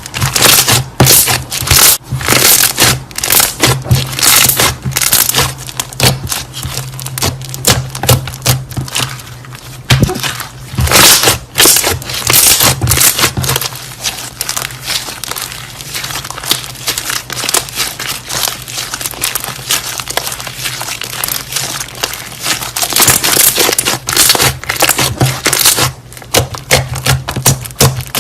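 Slime being kneaded and squeezed by hand: a dense, irregular run of wet clicks, pops and crackles as air pockets burst, in louder clusters every few seconds. A steady low hum runs underneath.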